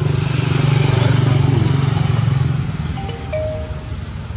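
A motorcycle engine running close by, a low rapid putter that swells about a second in and then fades away.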